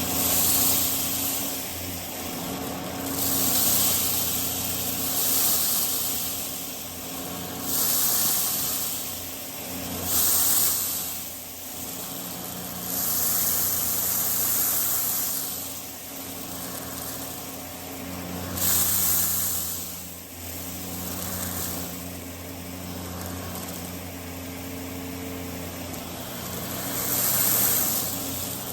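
Vacuum cleaner running, a steady motor hum under a hiss of rushing air that swells and fades every few seconds as it is pushed back and forth over the rug.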